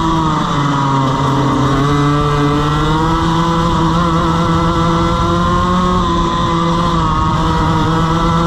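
Two-stroke kart engine with a power valve, heard onboard, running hard. Its revs drop about half a second in, stay low for about a second, then climb back up over the next couple of seconds and hold high.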